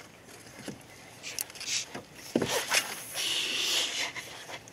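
A spinning rod cast from a boat, with the reel handled. There is a swish about halfway through, then nearly a second of steady hissing.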